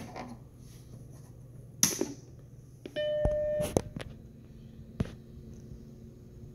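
Macintosh SE being switched on: a click about two seconds in, then its startup beep about a second later, a single buzzy square-wave tone lasting under a second. A few sharp clicks follow, and a low steady hum of the machine running sets in.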